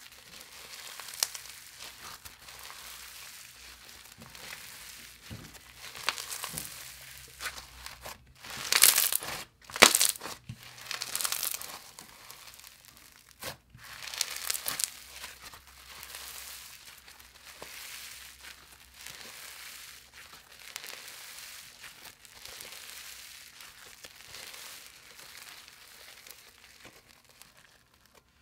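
Micro-bead floam being squeezed, folded and pressed by hand, its tiny foam beads crackling and crunching. The loudest, sharpest crunches come about a third of the way in.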